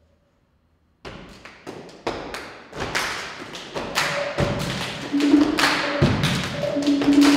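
Live hand drumming: rapid drum strikes begin about a second in after silence and build in loudness, some ringing with a short low tone.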